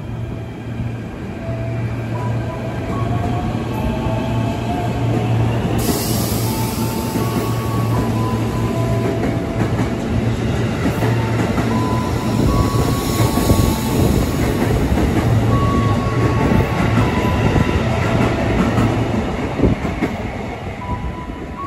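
JR 205 series electric commuter train pulling out of the station and running past on the rails: a low hum and wheel rumble, with motor tones that step up in pitch as it gathers speed. A high hiss joins about six seconds in, and the sound eases off near the end as the last car goes by.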